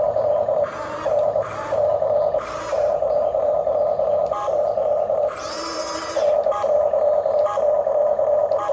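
Electric motors of a Huina 1550 RC model excavator whining steadily, with several short bursts of harsher gear noise as its functions are worked, the longest about five seconds in.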